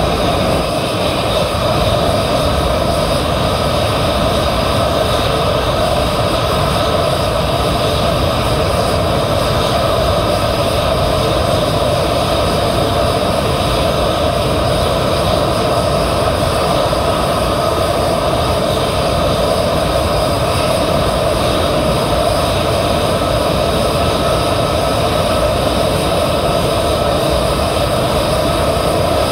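Jet engines of two parked F-35s, each a Pratt & Whitney F135 turbofan, running steadily on the ground after start-up. A loud, even whine and rush with no change in pitch.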